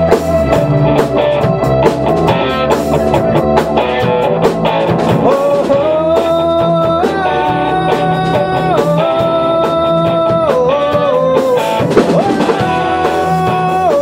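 Live rock band playing: drum kit, bass guitar, electric guitar and electric keyboard, under a held lead melody line that steps up and down and bends in pitch.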